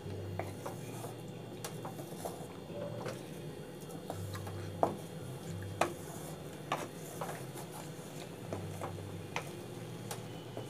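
Wooden spatula stirring thickening milk in a pan: irregular light clicks and taps, about one or two a second, with two sharper knocks about five and six seconds in, over a faint low hum.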